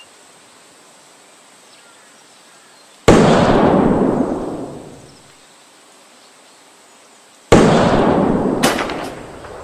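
Two hunting rifle shots about four and a half seconds apart, each a sharp crack followed by a long rolling echo that fades over about two seconds.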